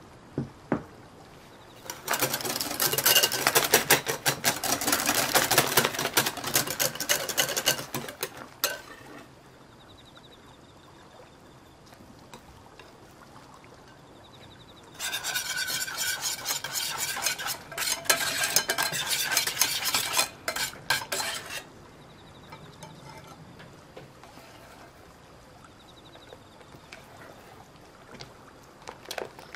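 A fork scraping and pressing crumbly chocolate-coated cookie crumbs into a paper-lined loaf tin. There are two stretches of dense, rapid scraping and rustling, each about six seconds long.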